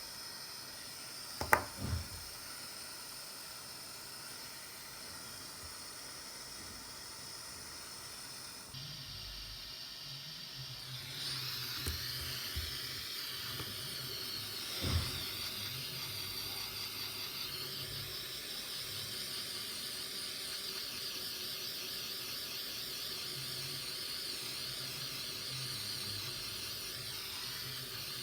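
Steady airy hiss that grows stronger about ten seconds in, with a low hum joining it. A sharp click comes near the start and a softer knock about halfway through.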